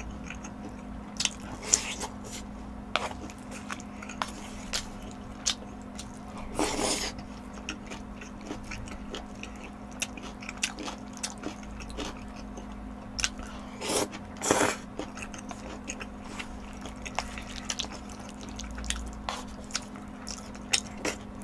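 Close-miked eating of jjajang, black-bean-sauce noodles and toppings, with chopsticks: wet chewing with frequent small mouth clicks, and a few louder, longer slurping sounds about seven and fourteen seconds in.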